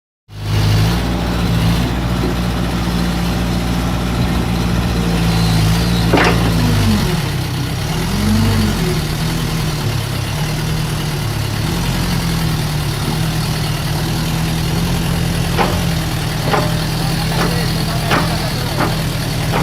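An old Kobelko excavator's diesel engine running steadily. A little after a sharp knock about six seconds in, the engine note sags and recovers twice, as if under load. Several more sharp metallic knocks come in the last few seconds.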